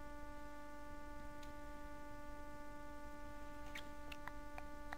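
Steady electrical hum made of several level tones, with a few faint mouse clicks near the end.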